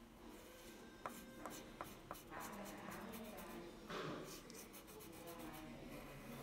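Crayon scratching on paper in short back-and-forth colouring strokes, faint, with a few light ticks between one and two seconds in.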